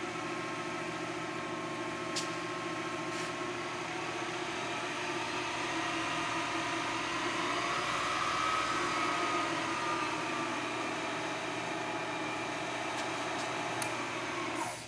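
Manford SP 160VSL turret mill's variable-speed head and spindle running with a steady mechanical whir and hum, growing a little louder toward the middle and then easing off. It drops away suddenly near the end as the machine is stopped.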